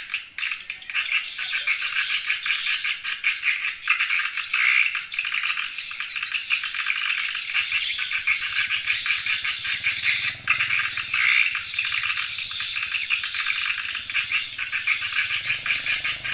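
Swiftlet lure call: a dense, unbroken chatter of fast rattling chirps and twitters, all high-pitched with nothing in the low range. It is the call sound played to draw swiftlets into a nest house.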